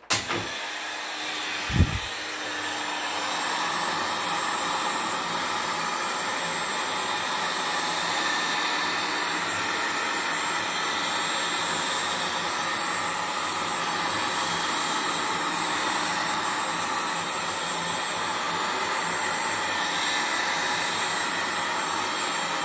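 Handheld heat gun blowing steadily over wet acrylic pour paint, heating the surface so that cells rise and open. One short thump about two seconds in.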